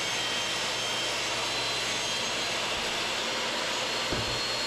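Table saw running and ripping a sheet of plywood: a steady rush of cutting noise with a high motor whine over it.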